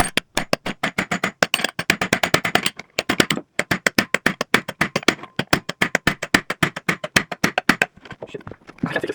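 Rapid metal-on-metal hammer strikes on a tool set in a hole in an electric scooter's stem, about eight blows a second, driving apart stem parts that are stuck together. The blows break off briefly near the end, then start again.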